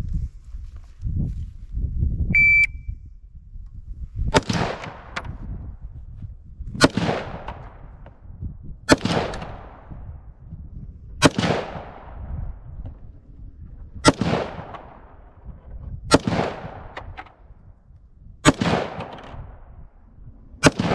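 Eight single gunshots fired at a steady pace, one every two seconds or so, each followed by a fading echo. A short high electronic beep sounds a couple of seconds before the first shot.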